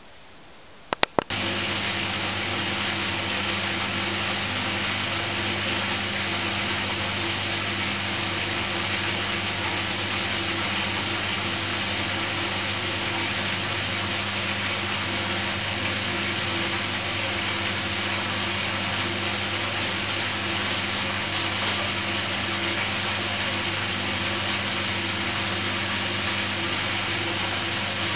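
Candy GrandO Plus washing machine on its wool programme: a couple of sharp clicks about a second in, then a steady hum with a rushing hiss starts at once and holds unchanged.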